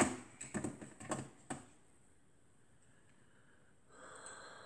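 A cat biting and knocking at a plastic pet carrier: about five sharp plastic clicks in the first second and a half, then a faint scrape about four seconds in.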